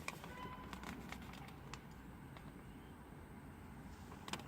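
Quiet room tone with a few faint scattered clicks and a slightly louder click near the end.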